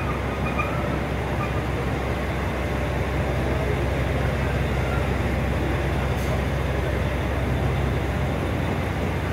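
A train standing at the platform, its engine idling in a steady low hum that grows a little louder in the middle.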